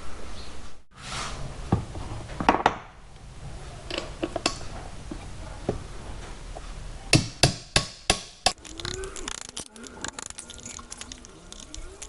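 Hand tools and metal motorcycle parts being handled on a workbench: scattered sharp knocks and clatters, with a quick run of about six loud knocks past the middle.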